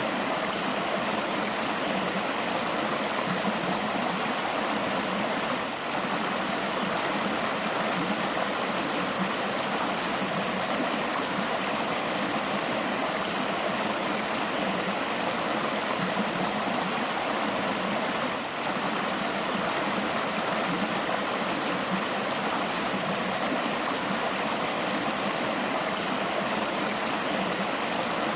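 A forest river flowing over rocks: a steady, continuous rush of running water.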